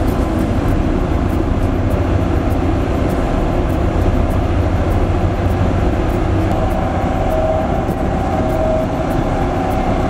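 Several LiuGong single-drum soil rollers running together, their diesel engines giving a loud, steady low rumble as they drive forward over the graded road bed.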